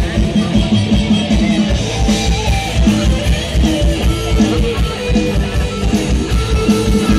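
Instrumental break of an Isan-style Thai song: a plucked-string lead and other instruments over a fast, steady drum beat, with no singing.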